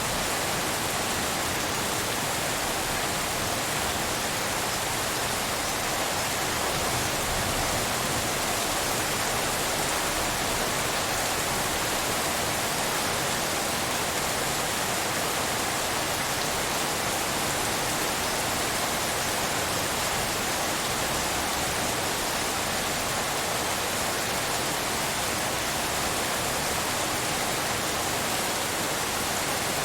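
Steady rainfall blended with pink noise: an even, unbroken hiss that does not change.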